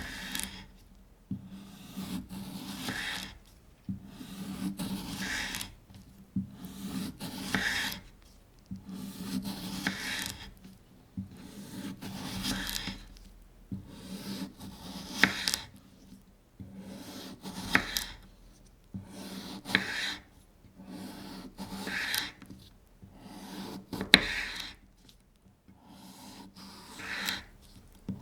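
Knife slicing a cucumber on a cutting board, one slow stroke about every two seconds. Each stroke is a rasping cut that ends in a sharp knock of the blade on the board.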